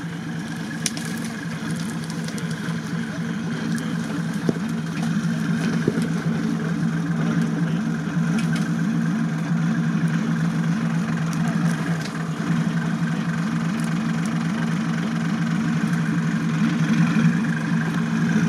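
Engine of a tube-frame off-road buggy running at low, steady revs as it crawls down a steep wooded bank, with a few sharp cracks along the way.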